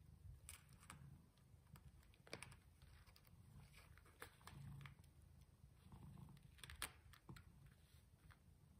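Newborn kittens suckling at the mother cat: faint, irregular wet clicks and smacks over a soft low rumble.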